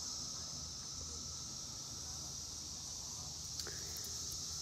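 Steady, high-pitched droning chorus of Brood X periodical cicadas, unbroken throughout, with one faint tap about three and a half seconds in.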